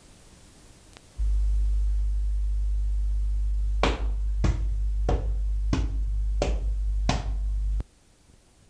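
A deep steady drone with six sharp, evenly spaced hits over it, about one and a half a second; the drone cuts off suddenly near the end.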